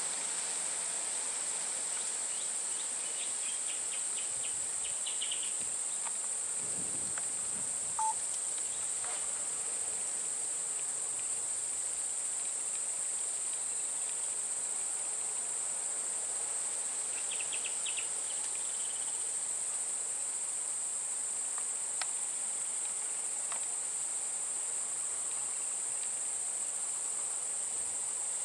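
Steady high-pitched drone of forest insects, with a few short clusters of bird chirps about three seconds in and again near seventeen seconds, and a brief sharp blip about eight seconds in.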